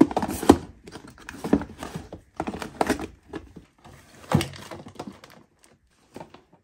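Plastic spice and condiment sachets crinkling and knocking against a clear plastic drawer bin as they are packed in by hand, a run of irregular taps and thunks that thins out near the end.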